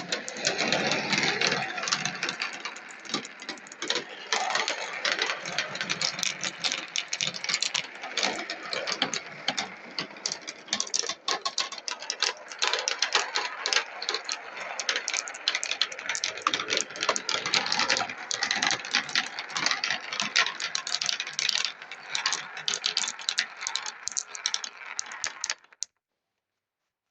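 A pack of 16 mm marbles rolling and clattering down a marble run, a dense, continuous rattle of clicks as they knock against each other and the track. It cuts off abruptly near the end.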